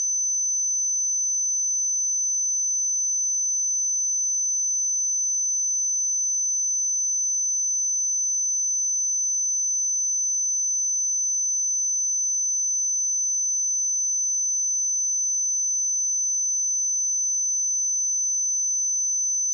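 A pure 6091 Hz sine-wave test tone, one steady high-pitched whistle-like tone held at constant level.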